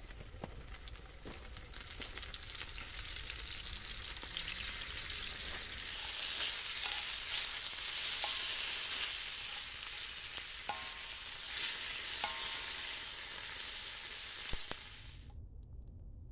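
Bacon sizzling in a frying pan over a campfire as it is turned with a wooden spatula. The sizzle swells louder twice, then cuts off suddenly near the end.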